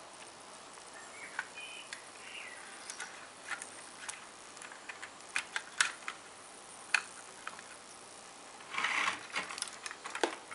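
Light plastic clicks and taps as a Kato HO-scale SD70MAC's plastic body shell is handled and fitted down over its chassis, with a short scraping rustle about nine seconds in.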